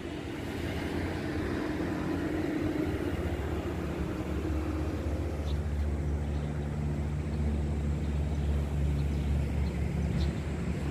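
Steady low rumble of vehicle traffic crossing the road bridge overhead, swelling over the first couple of seconds and then holding.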